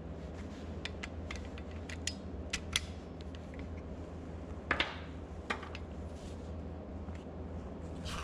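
Scattered light metallic clicks and clinks of hand tools as a socket extension is taken off a ratchet, with a short clatter about halfway through, over a steady low hum.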